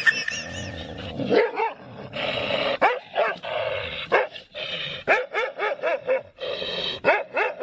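A dog barking, many short barks in quick succession.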